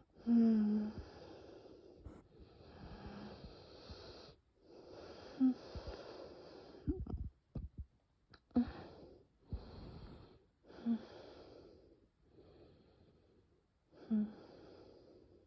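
A person breathing with a high whistling wheeze on every laboured breath, from bronchial spasm narrowing the airways in a severe asthma attack, with no coughing. Several breaths begin with a short low voiced catch, and after about seven seconds the breaths come shorter and more broken.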